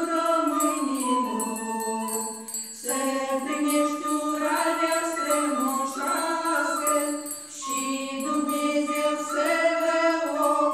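Small folk vocal ensemble of women's voices singing a traditional Moldovan New Year's greeting song together in unison, in phrases with short breaks between them.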